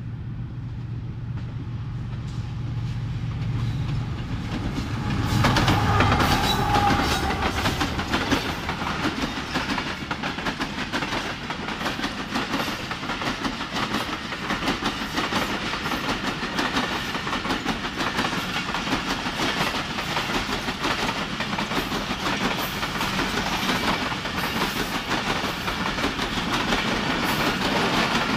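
Pakistan Railways GEU40 diesel-electric locomotive approaching with its engine running, loudest as it passes about six seconds in. A long string of passenger coaches follows, rolling past with a steady rattle and wheels clicking over rail joints.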